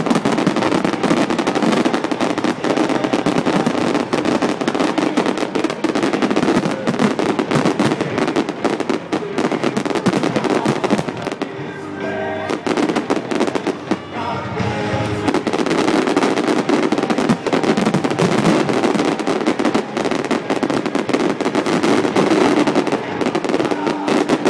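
Fireworks going off in a dense, continuous barrage of bangs and crackling, thinning briefly about halfway through before building again, with music playing underneath.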